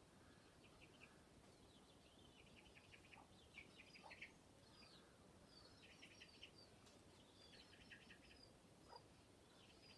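Faint bird chirps: short high calls and quick rattling trills, coming every second or so over a quiet background hiss.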